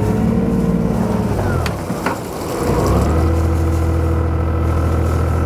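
A sailing yacht's inboard engine revving under throttle, easing off about a second and a half in with two sharp clicks, then revving up again and holding steady. These are short bursts of prop wash against the rudder that kick the stern over and turn the boat on the spot.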